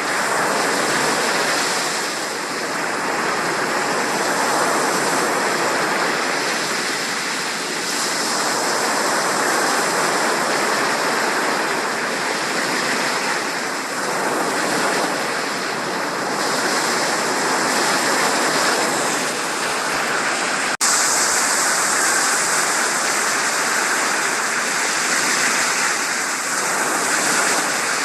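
Steady rush of flowing water: an even, unbroken noise with no separate events. About three-quarters of the way through it cuts abruptly to a brighter, hissier rush.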